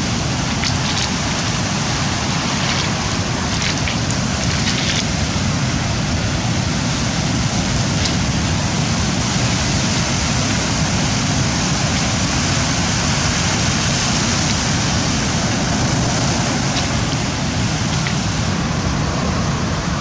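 Rough sea surf breaking along the shore, a steady rush of noise with a low rumble of wind on the microphone.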